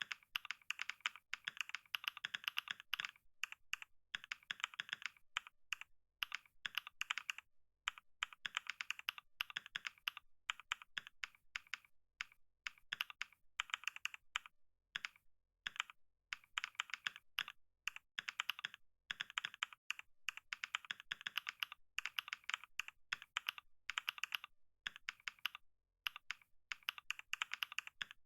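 Computer keyboard being typed on in steady runs of rapid keystrokes, broken by brief pauses, during a typing speed test.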